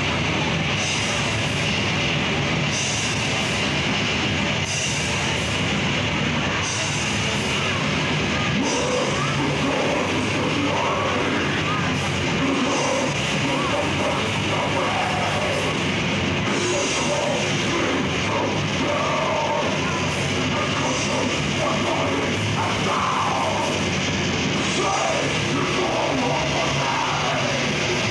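Death metal band playing live: loud distorted guitars, bass and drums, without a break.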